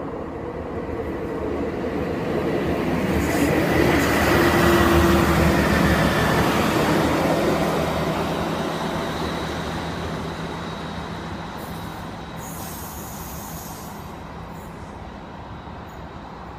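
Arriva Trains Wales Class 158 diesel multiple unit passing close by and running away along the line. Its diesel engines and wheels on the rails grow louder to a peak about five seconds in, with a brief thin squeal at the loudest point, then fade steadily into the distance.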